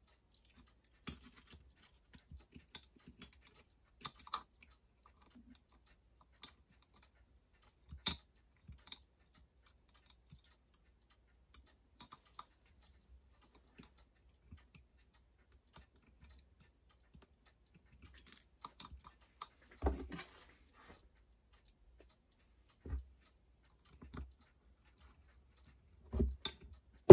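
Small metal parts of a toy steam locomotive clicking and tapping as its front truck is fitted by hand: scattered light clicks with long gaps, and a few duller, louder knocks in the second half.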